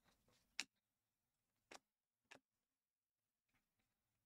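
Stiff glossy trading cards flicked through one at a time in the hands, each card's edge giving a short sharp tick: one clear tick about half a second in, two more within the next two seconds, and a couple of faint ones near the end.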